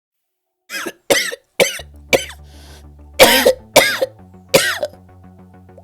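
A person coughing, about seven separate coughs, the loudest three in the second half. Soft background music with held low notes starts about two seconds in.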